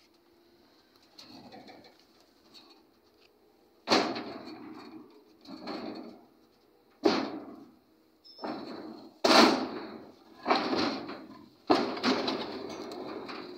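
Concrete pipes knocking and scraping against steel bars and each other as they are rolled off a truck bed: about seven sharp knocks from four seconds in, each trailing off over about a second.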